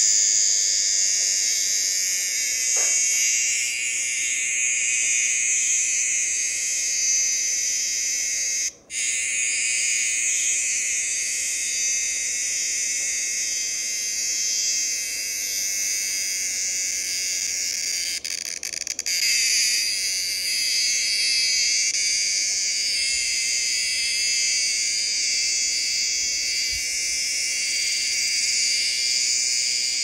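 Cicada buzzing, a loud, steady, high-pitched drone that breaks off briefly about nine seconds in and again around eighteen seconds in.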